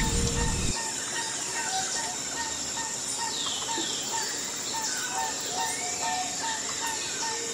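Cooking oil pouring into a steel wok, cutting off under a second in. After it, short chirping notes repeat at a steady rate over a faint high hiss.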